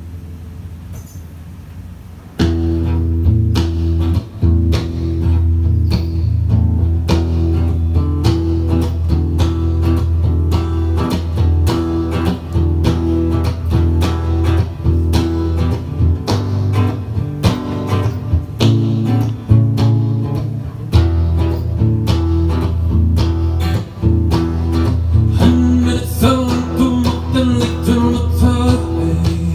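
Live band music: a strummed guitar over a bass line. It comes in at full volume about two seconds in, after a low hum.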